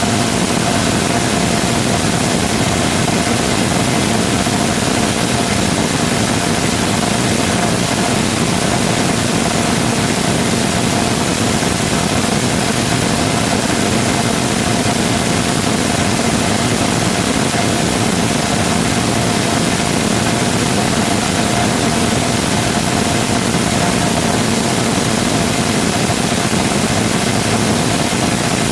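Rotating detonation rocket engine combustor firing steadily on a test stand: a continuous loud rushing noise with a constant high tone running through it, unchanging throughout.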